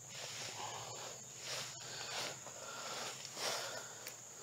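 Steady high-pitched insect chorus, with a few soft rustles mixed in.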